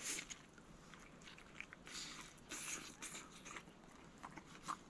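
A person biting into a tortilla wrap and chewing it: a sharp bite right at the start, then faint, irregular chewing sounds.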